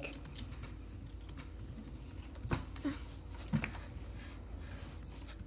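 Quiet room tone with a steady low hum, broken by a few faint, brief taps and small sounds about halfway through.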